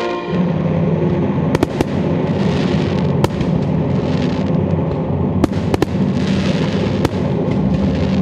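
Fireworks display: about half a dozen sharp bangs of shells bursting over a continuous deep rumble, with a spell of crackling in the middle.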